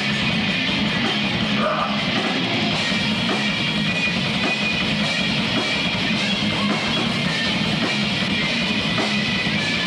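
Live heavy metal band playing: distorted electric guitar and drum kit, dense and steady.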